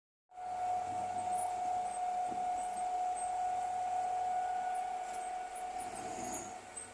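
Komatsu bulldozer running: a steady high whine over a low engine hum, starting just after a brief dropout.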